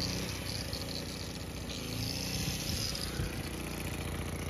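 Small portable gasoline generator engine running steadily, said to start on one pull and run well, with an electric angle grinder plugged into it spinning with a high whine that is loudest about halfway through.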